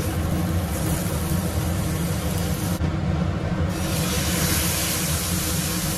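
Hot oil sizzling in a frying pan on a gas stove, growing louder a little past halfway as a piece of raw marinated chicken breast is laid in to fry. Under it runs a steady low mechanical hum.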